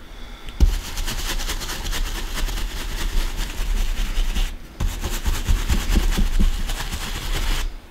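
Stencil brush pounced rapidly onto a stencil over a tea towel, a dense run of quick dabbing taps. Because the table shakes, the camera picks this up as a heavy low rumble. It pauses briefly a little past halfway and stops just before the end.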